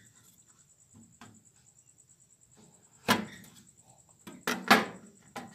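Long kitchen knife cutting through a slab of homemade chocolate and knocking on a plastic cutting board. There are several sharp knocks: one about three seconds in, then a quick cluster near the end that holds the loudest.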